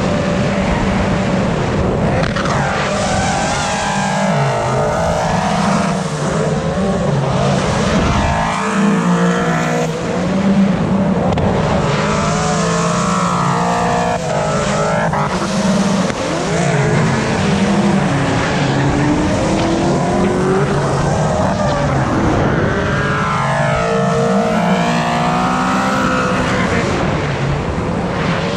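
BMW drift car engine revving hard, its pitch climbing and dropping again and again, with tyres squealing and sliding through the drift.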